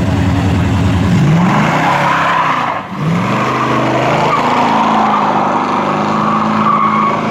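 Big V8 muscle car engine revving hard with the rear tyres spinning and squealing. The revs climb about a second in, drop briefly near three seconds, then rise again and hold high while the tyre squeal goes on.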